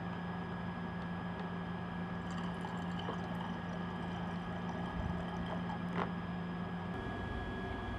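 Water trickling from a carboy's spigot into a glass Erlenmeyer flask from about two seconds in, over a steady low equipment hum. A click near six seconds comes as the tap is turned shut, and the hum drops away shortly after.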